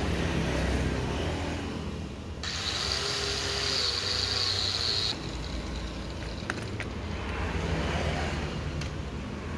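Steady low background rumble, with a hiss that starts and stops abruptly for about three seconds in the middle, and a few light clicks of scissors and fingers working an electrical wire.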